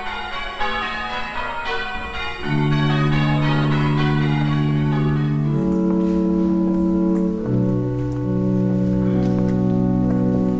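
Church bells ringing a quick run of struck notes, giving way about two and a half seconds in to a church organ playing slow, sustained chords.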